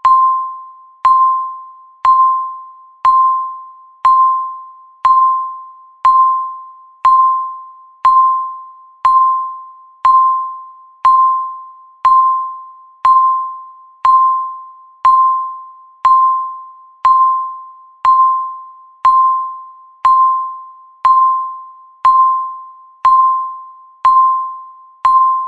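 Countdown timer beeping once a second: a short, single-pitched electronic ding that fades out before the next one, repeating evenly, about twenty-five times, through the last seconds before the countdown reaches zero.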